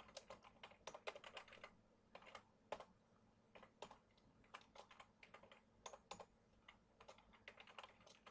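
Faint typing on a computer keyboard: quick irregular runs of key clicks broken by short pauses.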